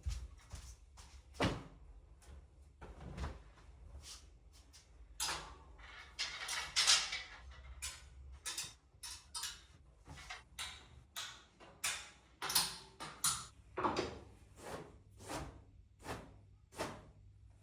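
Irregular clicks, taps and knocks of things being handled and set down, with a longer scraping rustle about six seconds in that is the loudest sound.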